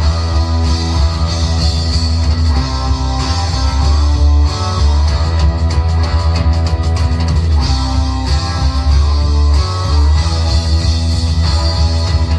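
Instrumental hard rock with no vocals: electric guitars, bass and drums playing together steadily.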